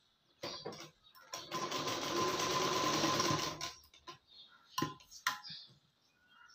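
Sewing machine stitching a seam through blouse fabric, run slowly: a short burst, then a steady run of about two seconds. Two sharp clicks follow near the end.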